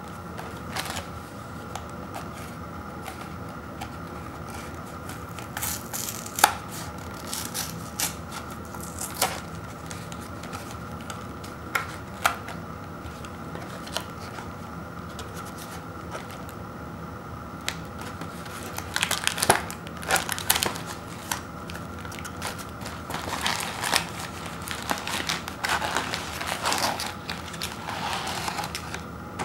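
A paperboard box being opened by hand: scattered sharp cracks and tearing of the glued flaps. In the second half comes denser crinkling and rustling as the individually wrapped granola bars are handled and pulled out of the box.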